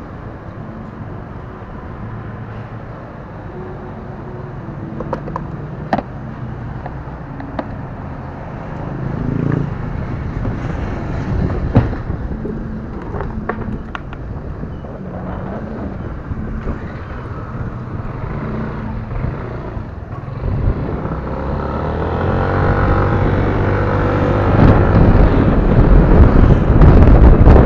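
Yamaha motor scooter engine idling with a few clicks, then pulling away and speeding up about twenty seconds in, rising in pitch and getting much louder, with wind rushing over the microphone near the end.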